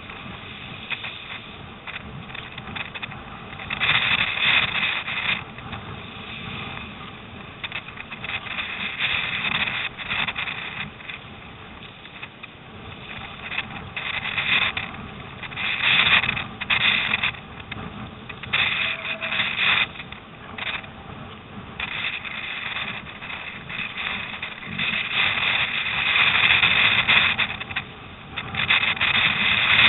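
Wind-driven lake water rushing and splashing against a surfski's hull as it runs with storm waves. It comes in irregular hissing surges of a second or two, over a steady low wind rumble on the microphone.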